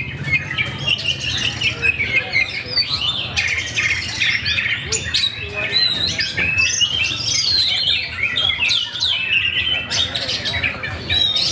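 Oriental magpie-robins (kacer) singing in a songbird contest: a dense, unbroken tangle of whistles, chirps and quick trills from several birds at once, over a steady low hum.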